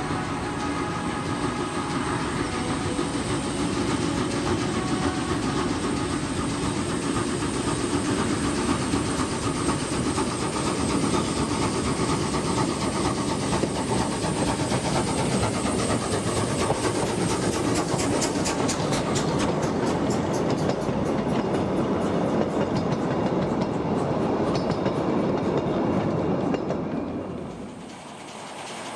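Small 1910 Krauss narrow-gauge steam locomotive pulling a freight train away, its steam exhaust chuffing with a hiss of steam from the cylinders. The sound drops away briefly near the end.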